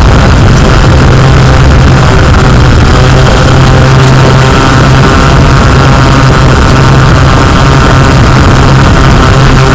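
Yuneec Q500+ quadcopter's four electric motors and propellers running with a loud, steady hum while it hovers.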